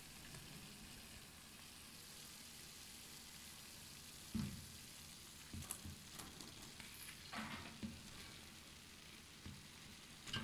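Faint steady sizzle of masala and ghee in a cooking pot, with a few soft knocks and thuds from about four seconds in as boiled rice is tipped from a plastic strainer into the pot.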